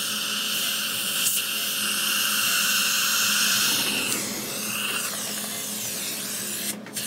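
Surgical suction tip hissing steadily as it draws fluid from the implant site. The hiss changes and eases about four seconds in, with a brief dropout near the end.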